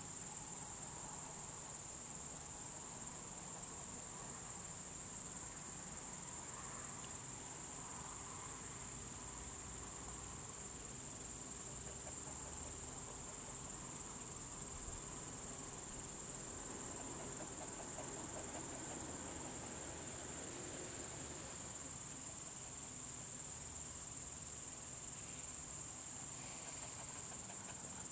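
Steady, high-pitched chirring of crickets on a summer night, an unbroken chorus with no thunder heard.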